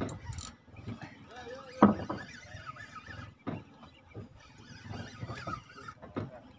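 Spinning reel being cranked and a rod handled while fighting a hooked fish, with scattered knocks and a short squeal about two seconds in, over faint voices.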